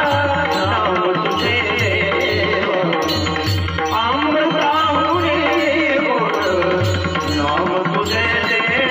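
Marathi devotional abhang: a woman singing in a high, full voice over tabla-style drum strokes in a steady rhythm.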